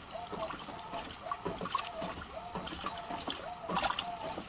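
Hotpoint washing machine running, water sloshing and splashing in the turning drum, with a short repeating tone about twice a second and scattered clicks.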